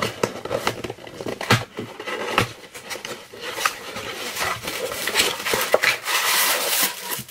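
A small cardboard box and its packaging being handled and opened: scattered clicks, taps and rustles, with a denser stretch of rustling near the end.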